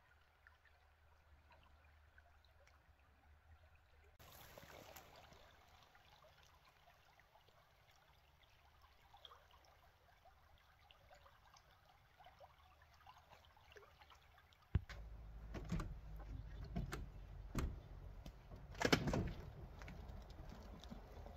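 A very faint stream murmur. About 15 s in it gives way to knocks, clunks and rustling as a clamshell rooftop tent is pushed shut, with the loudest knock near the end.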